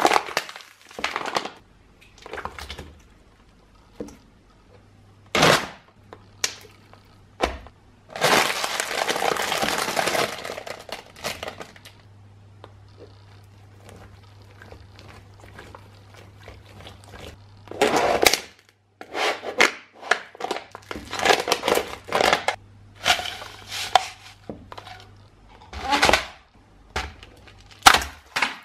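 A high-heeled shoe crushing things on a tile floor. Thin plastic cups crack and crumple, with a long crackling stretch a few seconds in. After a quieter spell comes a rapid series of sharp crunches from something brittle being ground into small crumbs.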